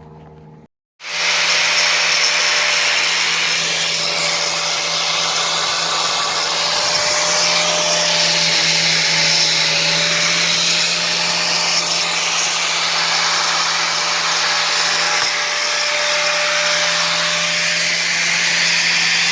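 Handheld electric grinder running steadily against the car's body metal, with a constant motor hum under a loud grinding hiss. It starts suddenly about a second in.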